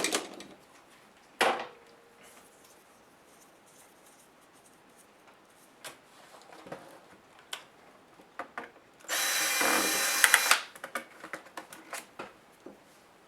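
Small power screwdriver runs for about a second and a half, backing out screws during laptop disassembly. Before it come sharp clicks and light ticks as the plastic case and parts are handled.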